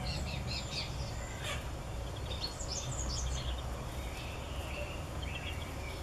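Newly hatched chicken chicks peeping: short, high cheeps scattered throughout, with a quick run of them around the middle, over a steady low background rumble.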